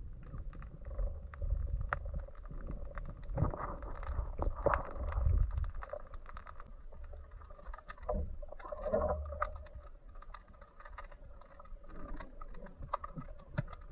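Underwater sound heard through an action camera's waterproof housing: a low rumble of moving water with scattered sharp clicks and crackles and a faint steady hum.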